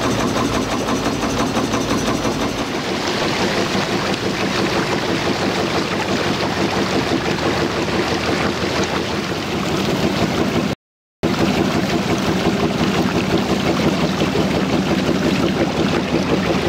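Small motor boat's engine running steadily, with water rushing and churning in the wake alongside the hull. The sound drops out briefly about two-thirds of the way through.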